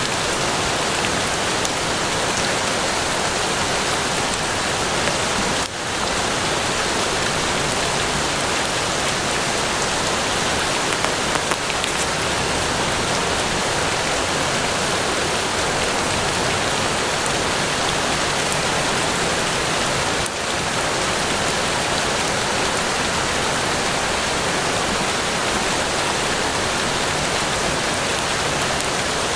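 Steady, heavy rain falling in a forest, a dense even hiss of countless drops, dipping very briefly twice.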